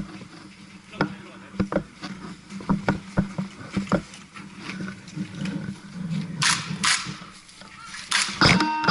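Scattered sharp pops of airsoft guns firing, single shots spread over the first four seconds, then two longer hissing bursts and louder pops near the end, where background music begins.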